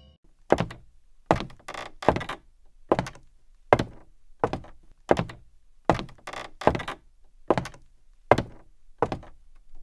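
Heavy footsteps on a wooden floor, a slow, even stride of about a dozen thudding steps, roughly one every three quarters of a second.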